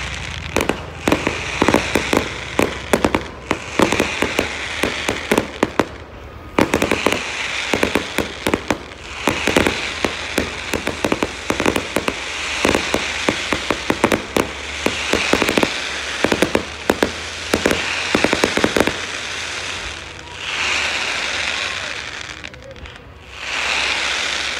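Fireworks display: rapid volleys of bangs and crackling from bursting shells over a steady hiss. The bangs thin out about 19 seconds in, leaving two hissing swells near the end.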